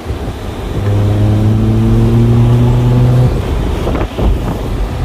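Car engine pulling under acceleration inside the cabin, over a steady rush of road noise. Its hum rises slightly in pitch, then drops away about three seconds in.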